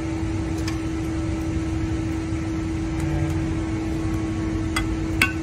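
A metal spatula clinks against a wok a few times, the sharpest clink near the end, over a steady low hum and rumble.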